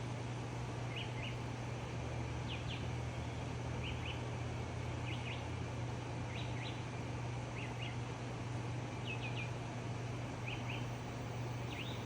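Faint bird chirping: groups of two or three short high notes repeating about every second and a half, over a steady low hum and hiss of room noise.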